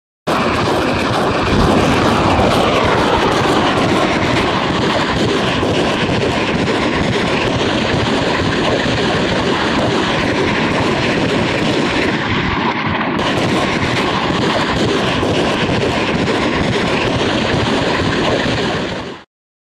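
Tracked multiple rocket launcher firing a ripple salvo: a loud, continuous rocket roar that holds steady, then stops abruptly near the end.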